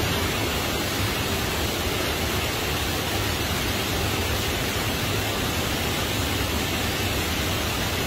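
A tall waterfall, about 44 metres high, pouring down a cliff into a natural pool below: a steady, even rush of falling water.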